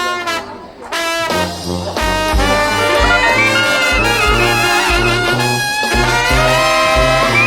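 Background music: a brass-led jazz band playing, with short horn chords at first and a steady beat coming in about two seconds in.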